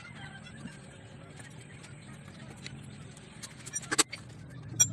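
Metal clicks and knocks from a wrench working a three-jaw gear puller on a motorcycle engine's flywheel rotor: a quick cluster of sharp clicks about four seconds in and one more near the end, over a faint steady background.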